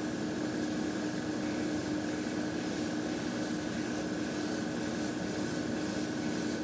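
Mr Hobby PS-290 trigger airbrush hissing steadily as it sprays a thin, dusty coat of Mr Surfacer 1000 primer, over a steady low hum.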